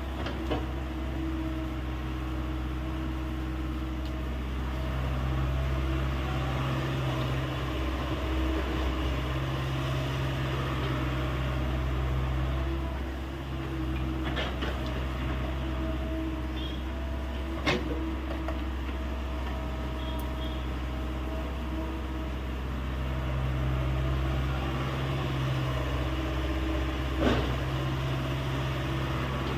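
Hyundai 85A excavator's diesel engine running steadily, its note swelling and easing every few seconds as the hydraulics take load, with a few sharp knocks.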